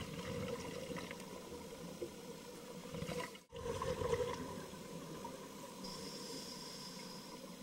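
Muffled underwater rumble and bubbling picked up by a camcorder in an underwater housing, with a faint steady whine underneath. The sound cuts out for an instant about three and a half seconds in, then swells briefly.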